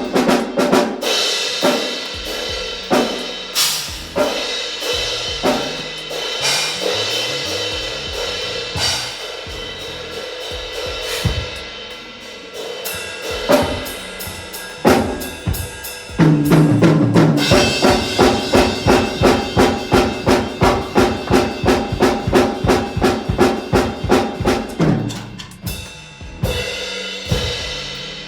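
Music: a drum kit playing over held chords. About 16 seconds in, the chords and drums build into a fast, even run of strikes, about four a second, lasting some eight seconds, before easing off.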